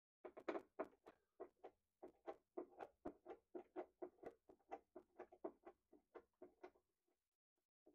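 Screwdriver turning a screw in a cabinet door's hinge: a quick run of short squeaky strokes, about three or four a second, that stops about seven seconds in.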